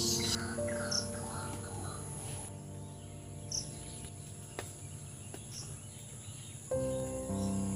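Steady high cricket chirping over soft background music, which gets louder near the end.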